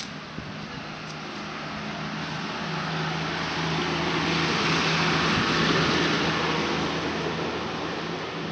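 A motor vehicle passing on the street: a steady engine hum with tyre and road noise that swells to its loudest a little past halfway, then fades.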